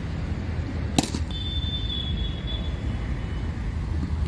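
A single sharp crack about a second in, the cricket bat striking the ball just after the delivery, over a steady low rumble. A faint high steady tone follows for about a second and a half.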